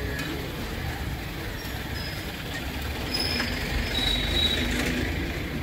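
Onion pakoda deep-frying in a large black kadai of hot oil, a steady sizzling hiss. It runs over a low street rumble that swells about three seconds in, with a few brief high squeals.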